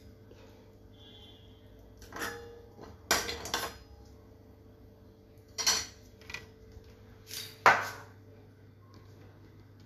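Long steel spoon scraping and clinking against a stainless-steel pan as soft porridge is scooped out, in about half a dozen separate strokes; the sharpest clink comes near the end.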